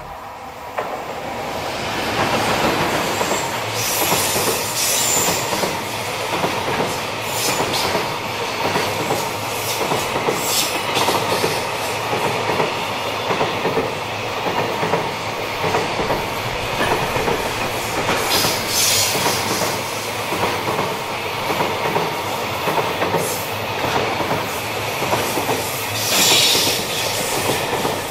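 A container freight train hauled by JR Freight EF210 electric locomotive EF210-2 passes close by, its container wagons rolling past with a steady rhythmic clatter of wheels over the rail joints. Brief high wheel squeals cut in several times, the loudest near the end.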